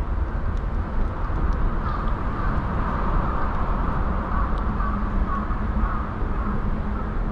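A cat eating from a metal dish, with faint scattered chewing and licking clicks over the steady low rumble of city traffic.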